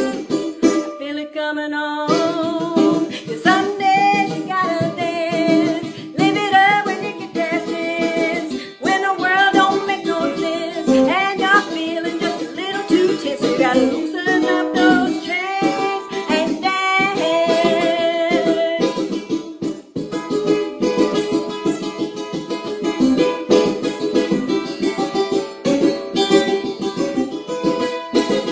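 A woman sings a country song while strumming a ukulele in an even rhythm. About two-thirds of the way through, the voice drops out and the ukulele carries on strumming alone.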